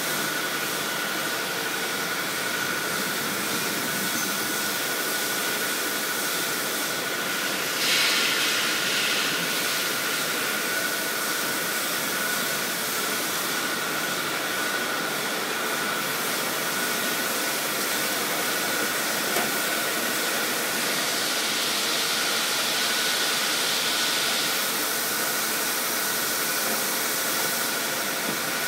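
Automatic sleeve-sealing heat-shrink wrapping tunnel running: a steady rush of hot-air blowers with a thin steady whine. The hiss swells louder for a second or two about eight seconds in, and again for a few seconds a little past the twenty-second mark.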